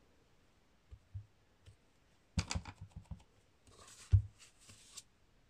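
Acrylic stamp block being handled and pressed onto a paper card panel on a craft mat: scattered light clicks and taps, a quick cluster of them about two and a half seconds in, and a soft thump a little after four seconds, with a brief paper rustle.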